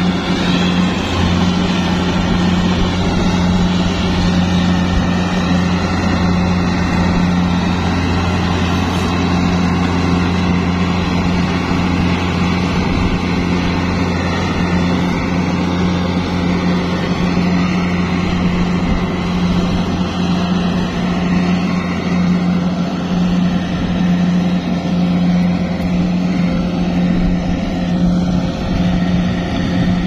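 Kubota DC70 Plus rice combine harvester's diesel engine running steadily under harvesting load, an even low drone with no change in speed.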